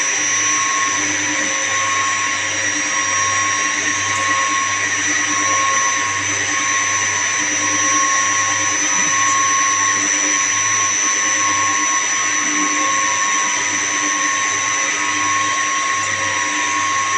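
Chiller-plant machinery running steadily: a continuous mechanical whine made of several steady tones over a broad hiss, with a slow pulsing hum underneath.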